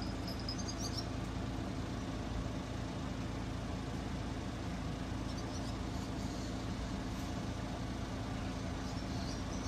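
Steady low mechanical hum, like an engine or motor running, with faint high chirps near the start, around the middle and near the end.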